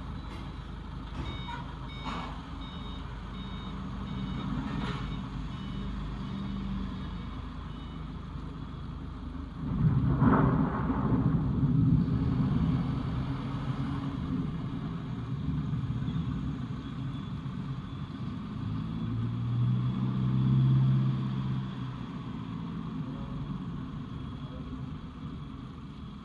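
A vehicle's reversing beeper sounding in evenly spaced short high beeps for the first several seconds, over a steady low background rumble. About ten seconds in, a loud low rumble sets in suddenly and lasts around ten seconds.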